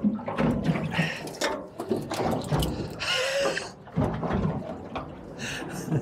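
Water sloshing and splashing around a small boat's hull, with irregular knocks and clatter; a brief rush of splashing comes about halfway through.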